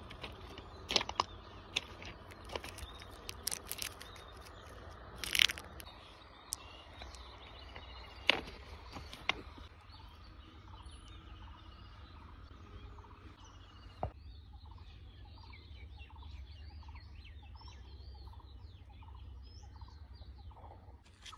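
Plastic candy wrappers crinkling and tearing, with sharp clicks and one louder rip in the first half. Birds then chirp over and over through the rest.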